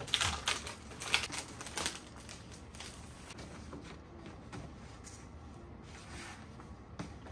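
A large rub-on transfer sheet rustling and crinkling as it is handled and held against a drawer side: a run of crackles in the first two seconds, then quieter with an occasional crackle.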